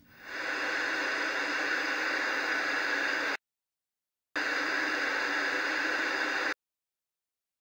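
Analogue TV static: steady white-noise hiss from a CRT television showing snow. It fades in, cuts off abruptly about three seconds in, resumes a second later for about two seconds, and cuts off again.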